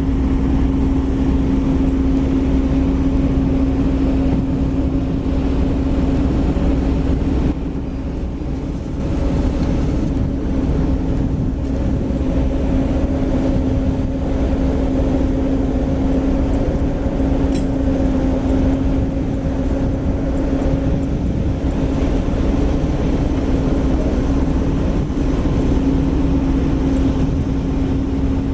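Heavy road-construction machinery running with a steady diesel rumble and a constant droning tone, dipping in level briefly about eight seconds in.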